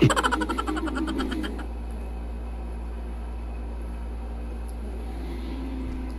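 A steady low hum, opening with a quick rapid run of short sounds in about the first second and a half.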